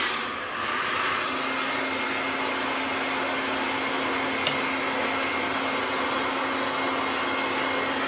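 Handheld hair dryer with a diffuser attachment running steadily, blowing air through hair; a steady hum joins the rushing air about a second in.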